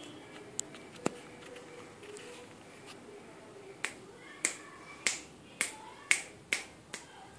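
Fingers snapping: two single snaps in the first second or so, then a run of about seven sharp snaps roughly half a second apart from about four seconds in.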